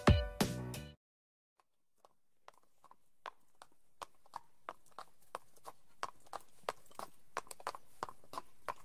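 Horse hooves clip-clopping in a steady rhythm, faint at first and growing louder as if approaching. The tail of a music track cuts off about a second in.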